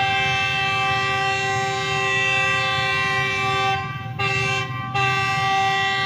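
Horn of a Pakistan Railways GEU40 diesel-electric locomotive sounding a long multi-tone blast. The blast is broken twice briefly, about four and five seconds in, then sounds again. A low rumble of the approaching train runs underneath.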